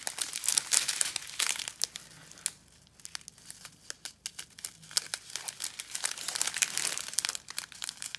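Small clear plastic packet of diamond-painting drills crinkling as it is handled and turned over in the fingers: irregular crackles, thinning out for a moment about three seconds in and picking up again after.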